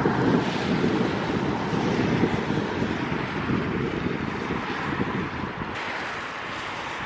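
Wind buffeting the microphone in irregular gusts, strongest in the first few seconds, over a steady low outdoor rumble.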